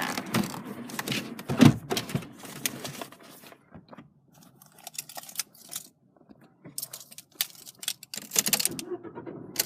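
Irregular clicks, taps and small rattles of handling in a car interior, the loudest knock about one and a half seconds in. It goes quieter around the middle and picks up again with a cluster of clicks near the end.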